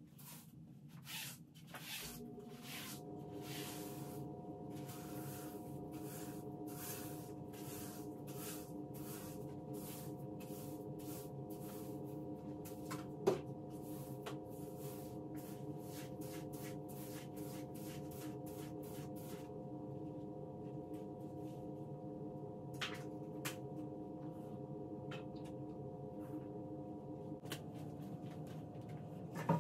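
A steady mechanical hum of several fixed tones starts about two seconds in, as of a kitchen appliance motor running. Over it come repeated scrubbing or wiping strokes, about two a second, which thin out about two-thirds of the way through, and a single sharp knock about halfway.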